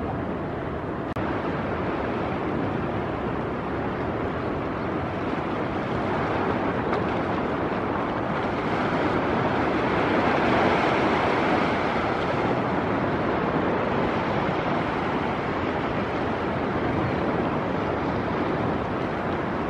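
Ocean surf breaking and washing, a steady rushing noise that swells to its loudest about halfway through.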